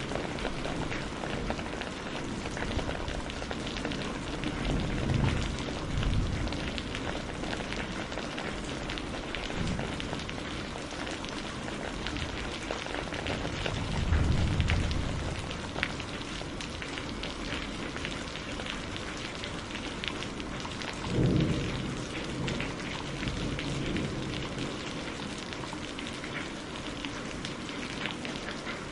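Steady rain falling, a constant hiss of drops, with low rolls of thunder swelling up three times: about five seconds in, around fourteen seconds, and a shorter one about twenty-one seconds in.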